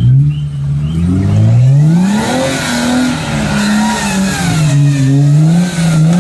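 Off-road 4x4 engine revving: the revs climb about a second in, hold, dip, and climb again near the end. A hiss rises alongside from about two seconds in.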